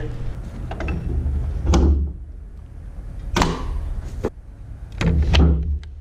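Several separate metal clunks and knocks from hitching equipment at the back of a tractor, over the low steady hum of the tractor's engine idling.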